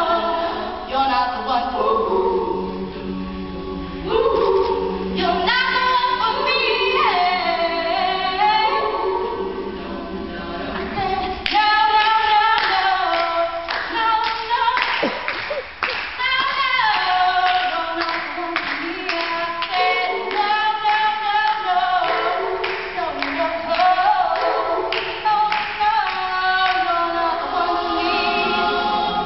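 All-female a cappella group singing a song in layered vocal harmony. About a third of the way in, a steady percussive beat joins the voices.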